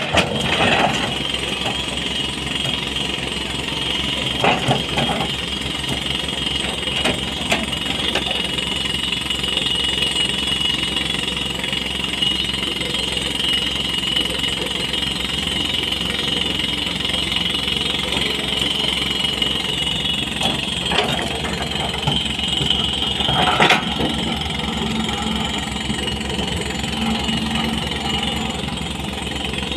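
SANY SY220C crawler excavator's diesel engine running with a steady high whine and a fast rattling pulse underneath, while the bucket knocks against rocks a few times, the loudest knock about 23 seconds in.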